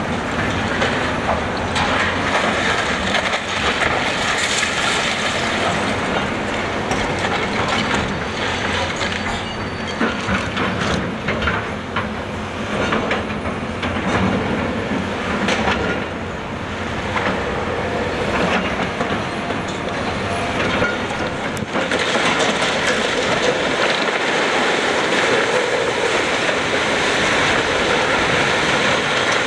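Building demolition by a John Deere 470G excavator with a shear: the machine's engine and hydraulics labour while steel framing screeches, clanks and rattles as it is torn apart. About 22 s in, the corner of the steel-framed building gives way and comes crashing down, and the crash and falling debris stay loud to the end.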